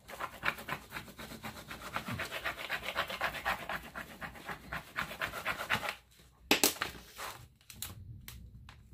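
Quick back-and-forth rubbing of a small burnishing tool over clear vinyl transfer tape on a board, several strokes a second, pressing the vinyl decal down so it sticks. The rubbing stops about six seconds in, and a few sharp crackles and taps follow.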